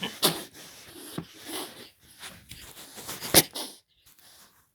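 A young pet growling at the camera in a string of short, raspy bursts, with one sharp, loud burst about three and a half seconds in before it goes quiet.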